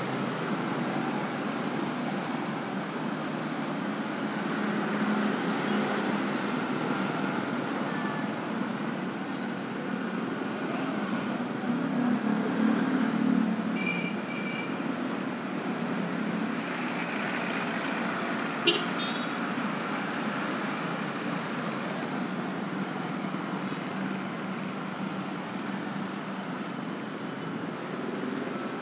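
Street traffic of motor scooters and cars passing, engines running steadily, with one passing louder about twelve seconds in. A brief high double beep comes about halfway, and a single sharp click a few seconds later.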